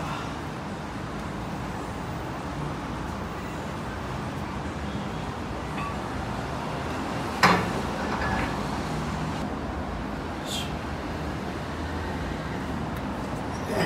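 A single sharp metal clank from a plate-loaded Hammer Strength shoulder press machine about halfway through, with a few fainter clicks later, over a steady background hum.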